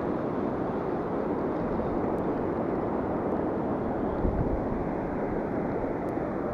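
Steady rush of fast water over a shallow, stony river riffle, with wind buffeting the microphone and a low rumble about four seconds in.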